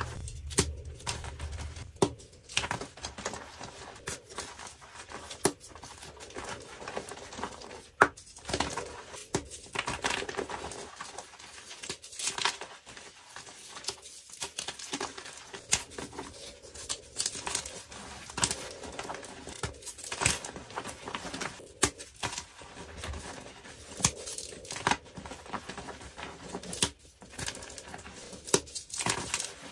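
Hands crushing and crumbling dyed gym chalk blocks: irregular dry crunches and sharp cracks as chunks break, with gritty rustling of powder in between.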